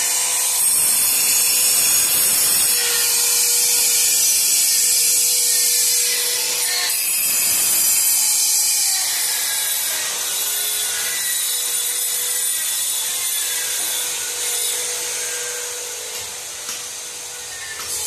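A power tool grinding stone, giving a steady, hissing grind that eases off somewhat near the end.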